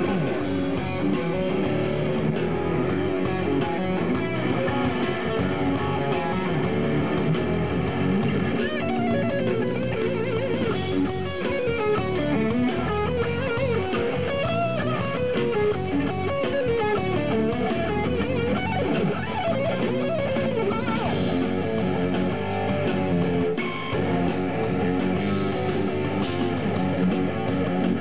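Vigier electric guitar played through an amplifier: a continuous run of notes, with wavering bends gliding up and down in pitch in the middle of the passage.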